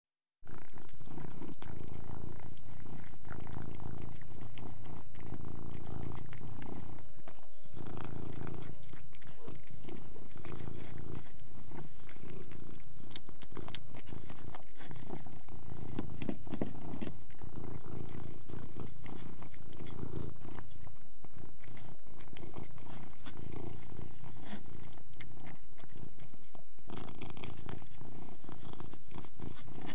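Persian cat purring steadily while eating, with many small sharp clicks of chewing over the purr.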